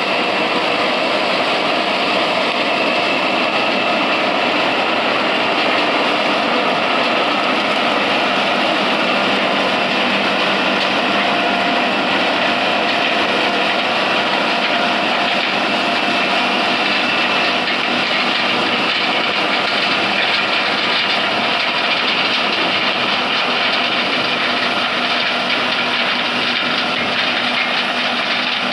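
John Deere combine harvester running steadily while harvesting corn: a loud, even mechanical drone of engine and threshing machinery, growing slightly fainter near the end as it moves away.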